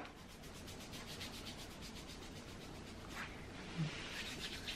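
Hands rubbing together, skin on skin, working freshly sprayed perfume into the wrists: a faint, quick, rhythmic swishing, strongest in the first couple of seconds, then a few softer strokes.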